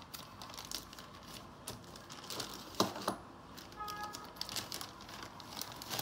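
Plastic zip-lock bag crinkling and crackling as it is handled and pulled open, with scattered small clicks and a sharper snap about three seconds in.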